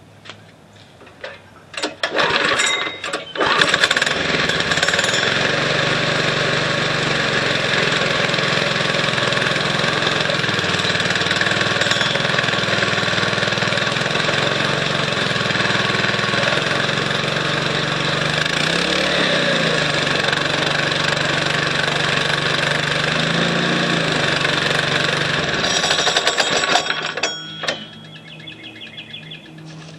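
Scooter's small single-cylinder engine, with a belt torque converter, is pull-started and catches about three seconds in. It then runs steadily with a couple of brief dips in pitch and is shut off near the end. The rear wheel is driven even at idle because the centrifugal clutch does not release.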